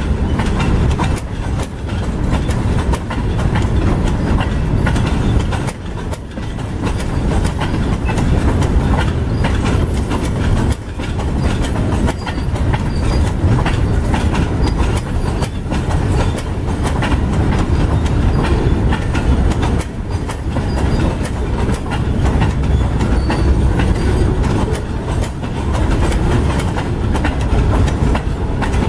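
Boxcars of a mixed freight train rolling past: a steady rumble of steel wheels on rail, with frequent clicks and knocks as the wheels pass over the rail joints.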